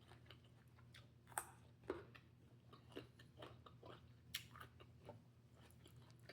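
A person chewing a mouthful of salad close to the microphone: soft, irregular crunches and wet mouth clicks, a few sharper ones standing out.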